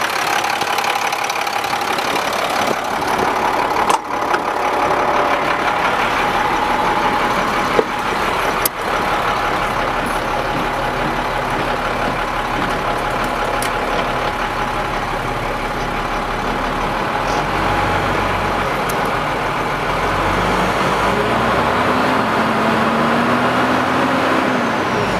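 International 4700 truck's engine idling steadily at about 750 rpm. Two sharp clicks come about four and nine seconds in.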